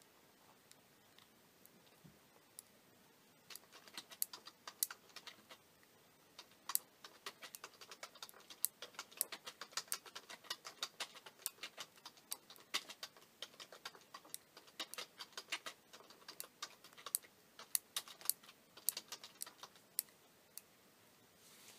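Small push buttons on a plastic aircraft-style digital LCD watch clicking as they are pressed over and over to change its settings. Quick irregular runs of sharp clicks, several a second, start about three and a half seconds in.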